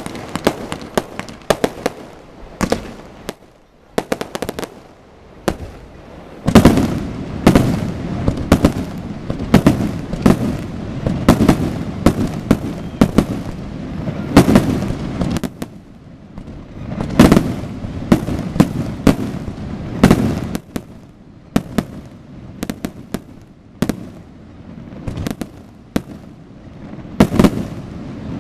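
Fireworks display: many sharp bangs in quick succession, thickening about six seconds in into a dense barrage of deep bursts, with short lulls now and then.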